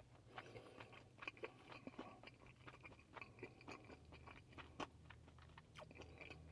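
Faint close-up chewing: a man eating, with small irregular crunches and mouth clicks. A low steady hum comes in about four seconds in.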